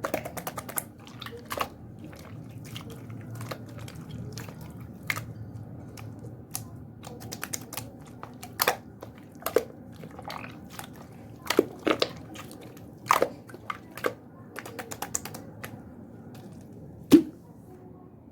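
Clear slime being squeezed and folded by hand, with irregular sharp pops and clicks as trapped air bursts, the loudest pop near the end.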